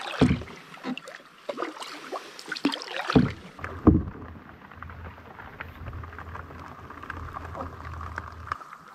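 Canoe being paddled: paddle strokes splashing in the water and knocking against the hull, the sharpest knock about four seconds in. After that a steady low rumble runs underneath.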